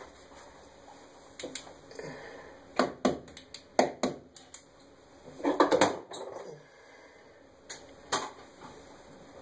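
Clicks, taps and rattles of hands working the wires and wire nuts in a ceiling electrical box. They come as separate sharp knocks, with a denser clatter a little past the middle.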